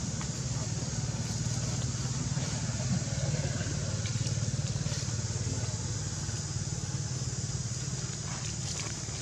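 Motorcycle engine running steadily, a low even drone with a fast, fine pulse.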